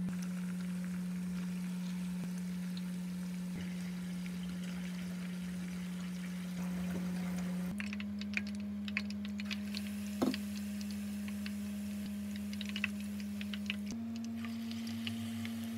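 Hot oil frying battered vegetables: light crackling with scattered small pops and drips of batter, most noticeable in the second half, over a steady low hum.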